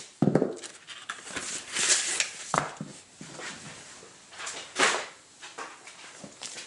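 Scissors cutting through a cardboard mailer, then bursts of rustling and scraping as the cardboard packing is handled, with a few sharp clicks and knocks.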